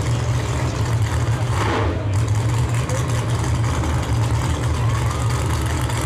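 Drag racing car engine idling with a steady low rumble. A brief hiss comes in about one and a half seconds in.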